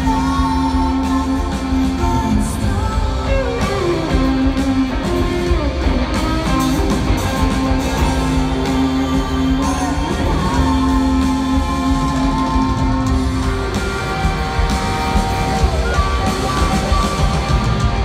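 A live rock band playing in an arena, with guitars and singing, heard from the crowd.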